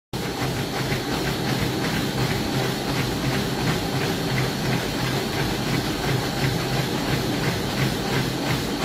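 Motorised treadmill running, a steady motor hum and belt hiss, with the even beat of running footfalls on the belt, about three steps a second.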